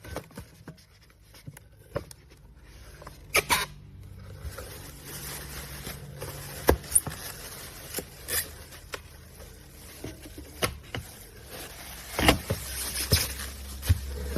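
Scattered clicks and knocks of things being handled, with a low steady hum coming in near the end.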